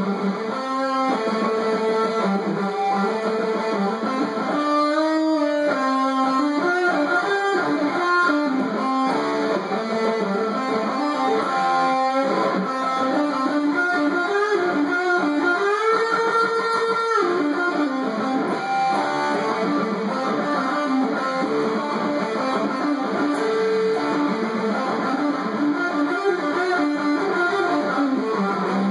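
Electric guitar playing a lead solo: a continuous run of changing notes, with one note bent upward and held just past the middle.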